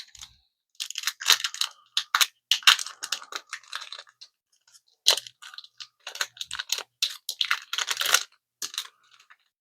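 The foil wrapper of a Magic: The Gathering booster pack being torn open and crinkled, in bursts of crackling with short pauses.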